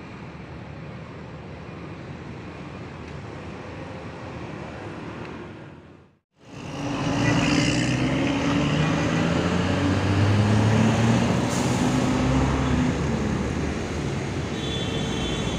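Steady road traffic noise; then, after a cut, a coach's diesel engine and exhaust pulling away much louder, its note climbing and dropping several times as it accelerates through the gears. The exhaust is notably loud, still strong as the bus moves off.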